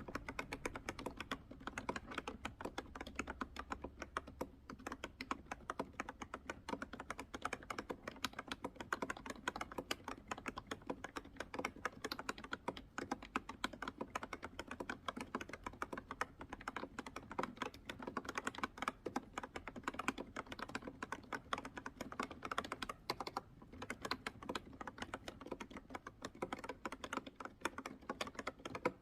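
Fast, continuous typing on an Ekto B303 retro keyboard whose switches have been lubricated: a dense run of key clacks with a couple of brief pauses. The lube has damped the keys' rattly 'chal-chal' chatter, leaving a quieter sound.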